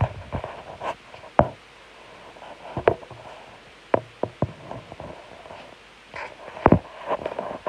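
Handling noise: a phone knocking and rubbing against a clear plastic tub, about eight sharp knocks at irregular intervals with scraping in between.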